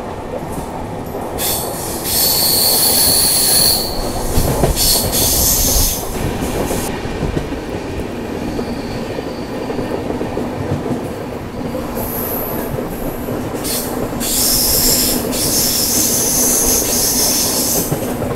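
Express train running through a curve: a steady rumble from the wheels on the rails, with high-pitched flange squeal from the wheels on the curve. The squeal comes and goes in stretches, loudest a couple of seconds in and again near the end.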